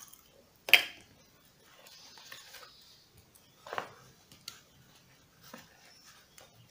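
Handling noise from small hard repair parts: a sharp click about a second in, a softer knock a little past the middle, with faint rustling and light ticks in between.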